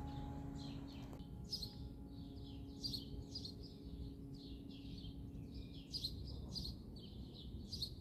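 Songbirds chirping outdoors: many short, high chirps repeating about every half second, over a faint low background hum. The last notes of a piano tune fade out in the first second.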